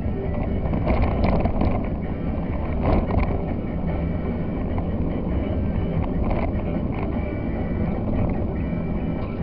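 Van engine and tyre noise heard from inside the cab while driving along a narrow country lane, a steady low drone with a few brief knocks and rattles from the bumpy surface.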